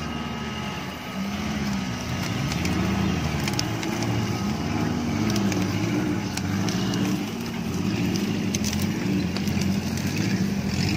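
Small four-cylinder engine of an off-road Suzuki Jimny revving up and down over and over, roughly once a second, as it works through mud. Scattered sharp snaps of dry crop stalks breaking under the tyres.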